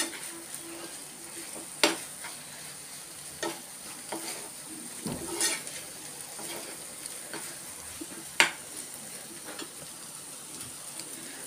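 Makhana veg keema sizzling gently in a frying pan while a steel spoon stirs it, with several sharp clinks and scrapes of the spoon against the pan, the loudest about two seconds in and about eight seconds in.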